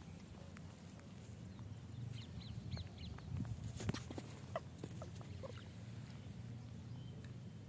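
A few faint, short, high chirping calls from an animal, about four in quick succession around two seconds in and a few shorter squeaks around four to five seconds in, over a steady low outdoor rumble.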